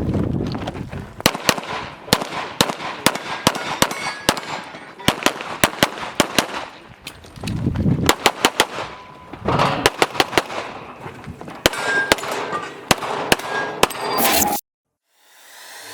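Handgun shots fired in quick strings, as in an IPSC practical pistol stage, many sharp reports in rapid, irregular series. The audio cuts off abruptly near the end.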